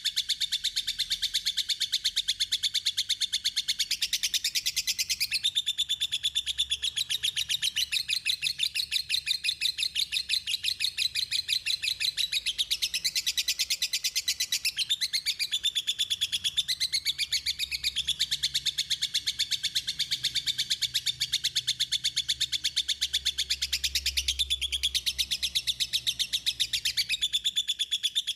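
A small songbird singing a fast, unbroken chattering trill of high notes repeated many times a second, with short changes of phrase along the way. This is a masteran tutoring recording of the kind played to caged songbirds to teach them song.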